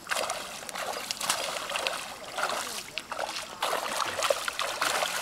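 Trout splashing and slapping at the surface of a pond as they snap up food thrown on the water: a run of short, irregular splashes.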